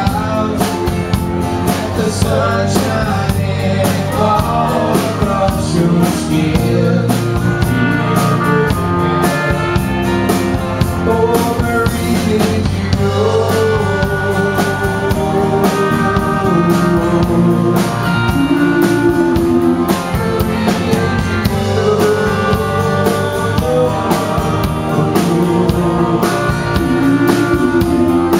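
Live country band playing a song: a man singing over strummed acoustic guitar, Telecaster-style electric guitar, bass and drums.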